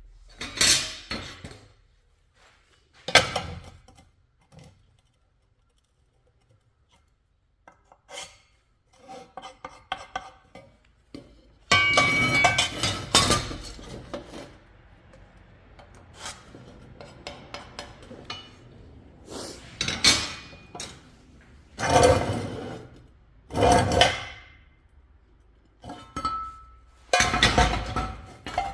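Steel pipe pieces clanking and clinking as they are handled and knocked together, in separate bursts with short metallic rings and quiet gaps between.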